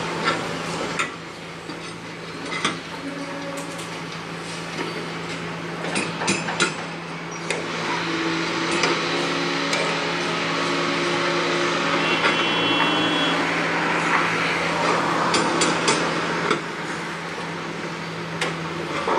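Construction-site noise: a steady machine hum under scattered hammer blows and knocks, with workers' voices mixed in. The hum cuts off near the end.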